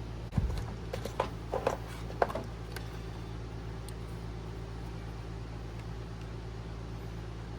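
A few light clicks and taps of small parts being handled, as a plastic wire connector is fitted onto the AC accumulator's sensor. The clicks come in the first two and a half seconds, over a steady low hum.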